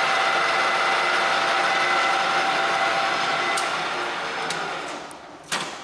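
Takisawa TSL-800D engine lathe running at 1,030 RPM spindle speed, a steady hum with several fixed tones. About three and a half seconds in it winds down and fades, with a few clicks and one loud sharp click near the end.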